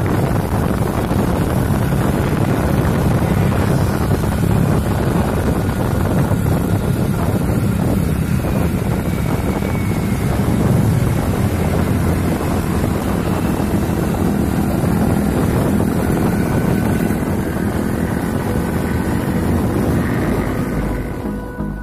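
Wind buffeting the microphone and motorbike engines running during a ride, a steady noise.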